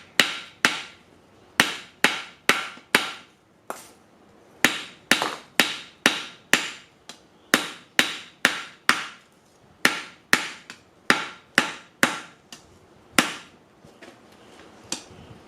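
Blacksmith's hand hammer striking metal stock on a makeshift anvil, about two to three blows a second with a short ring after each, with brief pauses, stopping shortly before the end.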